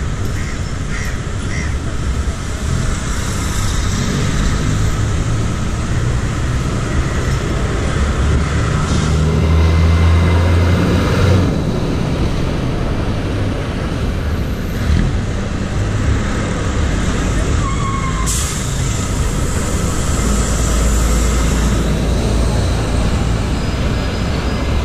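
City street noise heard from a moving bicycle: steady low rumble of traffic and wind, with a heavier vehicle's engine loudest about ten seconds in, and crows cawing.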